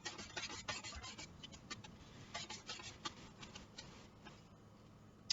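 Onion being slid across a mandoline slicer's blade: a run of short, crisp scraping and clicking strokes in uneven clusters that thin out after about three seconds.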